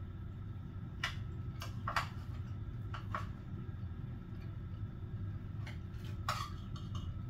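Eating at a hotpot meal: a scattering of short, sharp clicks and smacks, about eight over several seconds, over a steady low hum.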